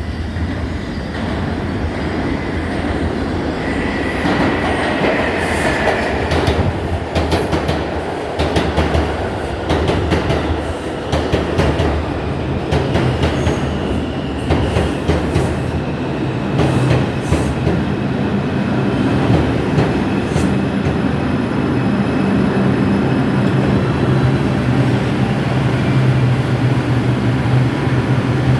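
New York City Subway 4 train of R142-family cars pulling into a station: wheels clicking over rail joints with a brief wheel squeal early in the pass, then a steady motor hum and whine as the train slows.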